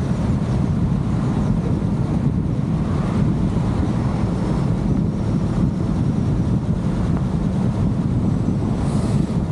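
Steady low rumble of a car driving, with wind buffeting a microphone on the car's roof. A brief hiss rises near the end.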